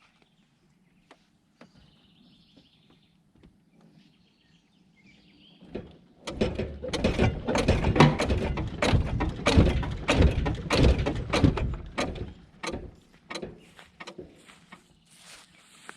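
Rapid, heavy clunking and rattling from the rear suspension of a 1998 Toyota 4Runner, starting about six seconds in and lasting about six seconds, then tailing off into a few single knocks. Both rear shocks have blown out and come loose from their mounts, so the rear end is no longer damped.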